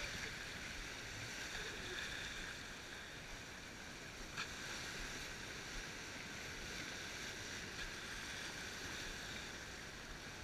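Water rushing along the hull of a Gozzard 36 sailboat under sail, a steady hiss of the bow wave and passing sea, with one short click about four seconds in.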